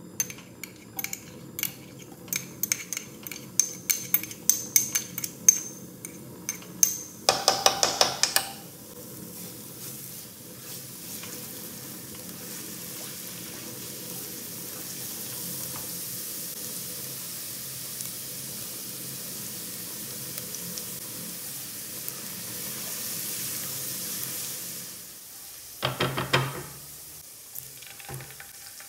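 Minced garlic going into hot olive oil in a nonstick pot: sharp taps and scrapes of utensils against the bowl and pot, then a steady sizzle as the garlic fries while it is stirred. Near the end, a cluster of knocks as whole baby potatoes are put into the pot.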